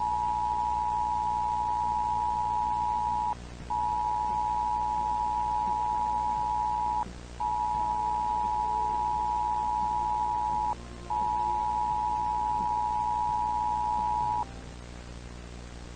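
Steady electronic alert tone sounded four times, each about three and a half seconds long with short breaks between, over a low steady hum. The tone stops near the end, leaving the hum.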